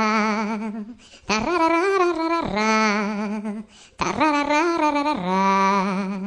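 Funny ringtone of a voice singing wordlessly in three long, wavering phrases, each dropping to a lower held note, with short breaks between them.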